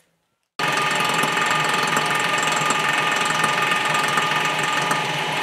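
Blockmaster 85B block-surfacing machine running steadily, its large cutter head spinning, with a constant whine.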